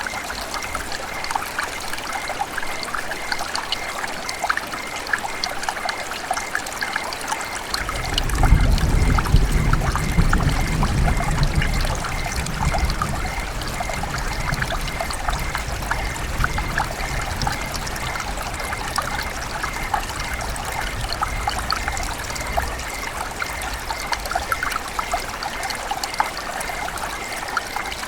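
River water running and trickling, a steady stream of small splashes and gurgles. A low rumble swells in about eight seconds in and fades out by about twelve.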